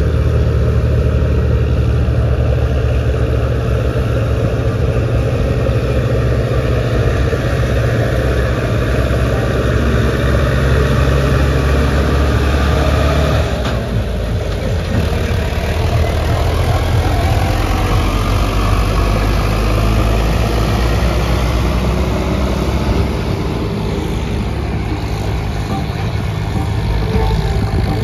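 New Holland tractor's diesel engine running under heavy load as it hauls two trolleys of sugarcane past, with a second loaded tractor's engine coming up behind; the engine sound shifts abruptly about halfway through as the first tractor goes by.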